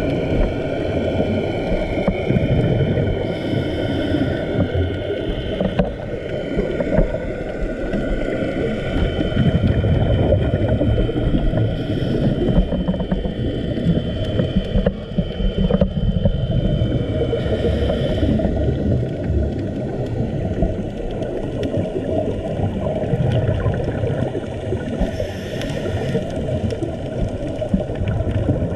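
Underwater ambience heard through a camera's dive housing: a steady low rumble of water, with faint wavering whines like a distant boat engine heard through the water. Short hissing bursts of a scuba diver's exhaled bubbles come about every seven seconds.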